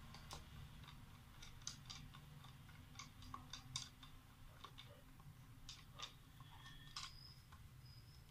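Faint, irregular metallic clicks and ticks, several in quick clusters, from a long screwdriver working a screw in the top cap of a water-purifier booster motor.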